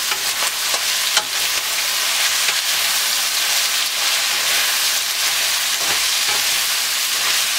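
Chicken, broccoli and sliced onion sizzling steadily in hot oil in a nonstick pan while being stirred and tossed with a spatula, with a few light knocks and scrapes of the spatula against the pan.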